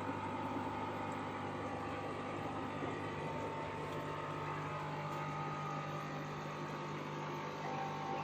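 Steady hum of aquarium air pumps driving bubbling filters, with constant low and mid-pitched tones over an even hiss of air and water.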